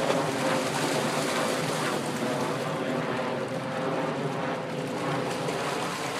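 Dogs galloping and splashing through a shallow rain puddle, with continuous sloshing and splashing water.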